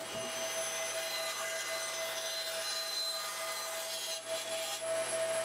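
Bandsaw running and cutting waste off a wooden leg blank along a curved traced line: a steady whir of the saw with the blade sawing through the wood, dipping briefly about four seconds in.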